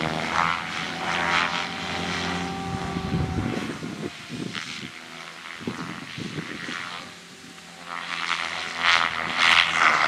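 SAB Goblin 570 electric RC helicopter flying aerobatics: the main rotor blades whoosh and buzz, swelling and fading as it manoeuvres. It is loudest near the end.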